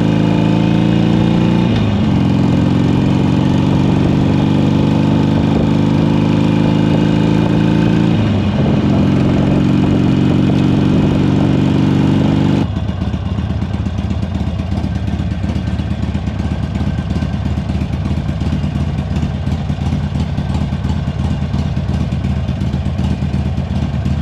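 Harley-Davidson Sportster 1200 Custom's air-cooled V-twin under way, pulling up through the gears: the engine note climbs and drops back at shifts about two and eight seconds in. About halfway it cuts abruptly to a quieter, steady engine sound.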